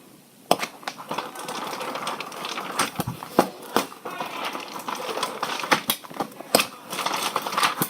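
Rustling noise with irregular sharp clicks and knocks, several in quick succession at times.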